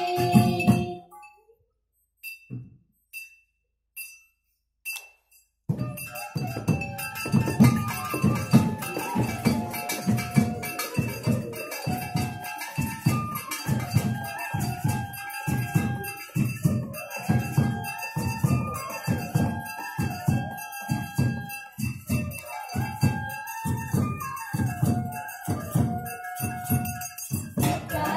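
Music with a steady beat and a melody. It breaks off about a second in and starts again after a pause of about five seconds.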